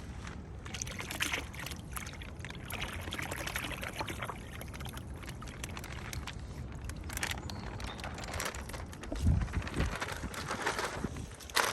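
Water pouring and splashing out of a plastic fish bag into a pond as the fish are let go, with a brief low rumble of wind on the microphone about nine seconds in.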